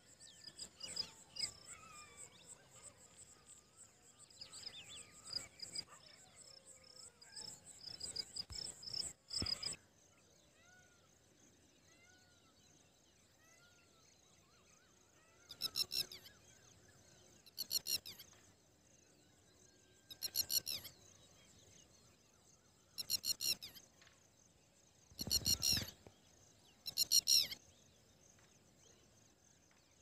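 Red-wattled lapwing calling: six loud bursts of rapid, sharp, high notes, each under a second and two to three seconds apart, starting about halfway in. Before them a steady high-pitched trill with faint chirps runs in the background and stops about a third of the way in.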